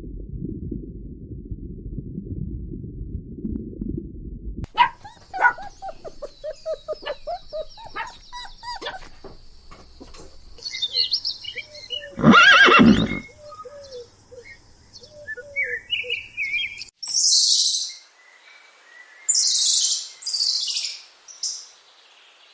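A string of different animal calls: a low rumbling noise for the first few seconds, then a run of short chirping and clucking calls with one loud, longer call about halfway. Near the end come several short, high hissing bursts.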